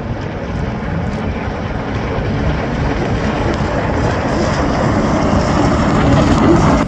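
Jet ski engines running hard, a dense steady drone that grows gradually louder toward the end.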